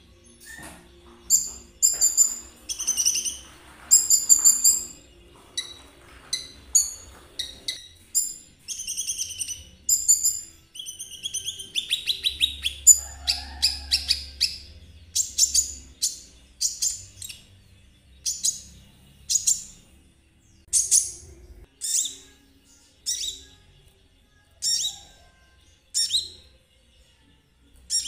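A konin (konin trotol) songbird singing energetically in short, high, chirping phrases. The first half is quick clusters of notes; the second half is single sharp whistled notes about once a second.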